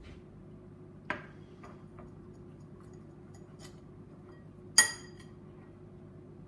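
A metal utensil clicking and tapping against a small ceramic bowl while colouring is stirred into icing, with one sharp ringing clink about five seconds in. A faint steady hum runs underneath.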